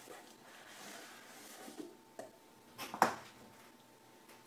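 Cardboard rustling and scraping as a boxed mouse is slid out of a cardboard shipping box, then a small click and a sharp knock about three seconds in as a box is set down on the tabletop.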